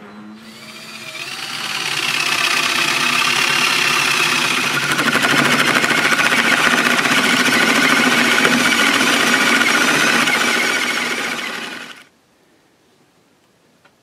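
Power drill boring a 1.5-inch entrance hole with a wood bit through a wall of branch sticks. The motor spins up with a rising whine over the first couple of seconds, runs steadily, and stops abruptly about twelve seconds in.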